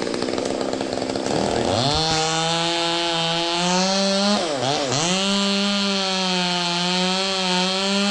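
Two-stroke chainsaw revving up from idle and cutting through wood at full throttle. About halfway through, the throttle eases off briefly and comes back up before the saw keeps cutting.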